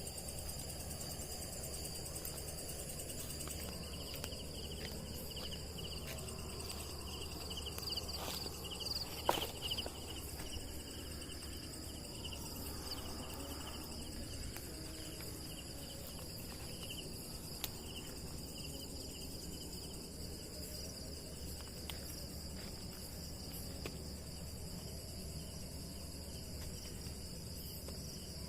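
Steady, shrill chorus of night insects in forest, several high trilling tones layered together. A few short clicks or knocks come between about eight and ten seconds in.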